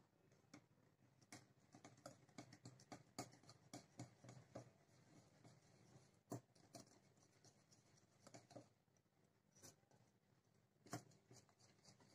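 Faint, irregular clicks and scrapes of a wire whisk against a glass bowl, stirring sifted flour and cocoa powder into a cake batter.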